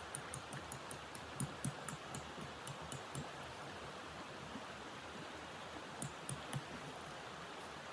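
Footsteps crunching in cold snow: a quick run of crisp steps over the first three seconds, then three more a little after six seconds, over a steady hiss.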